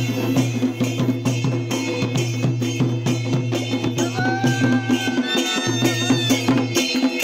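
Traditional folk band playing: a fast, steady drumbeat over a sustained droning tone, with a higher melody note held for about a second around the middle.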